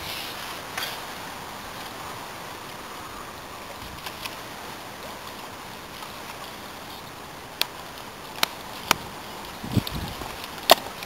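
Steady outdoor background hiss with no clear source, and a few sharp clicks and knocks in the last few seconds.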